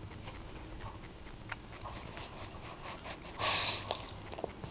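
A pug sniffing close up, with small clicks and faint breaths and one loud half-second sniff about three and a half seconds in.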